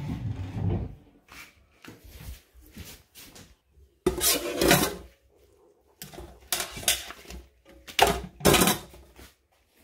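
Irregular household handling noises: knocks and clatter, with three separate noisy bursts of about a second each in the second half.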